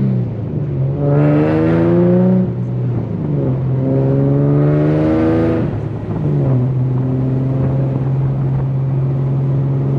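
Infiniti G37's V6 through an ISR single-exit GT exhaust, accelerating through the gears. The engine note climbs, drops at an upshift about two and a half seconds in, climbs again, drops at another shift about six seconds in, then holds steady.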